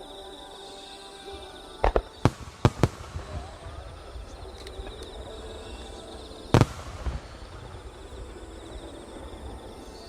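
Aerial fireworks shells bursting: a quick cluster of sharp booms about two seconds in, a louder single boom past the middle, with crackling after some bursts. Music plays steadily underneath.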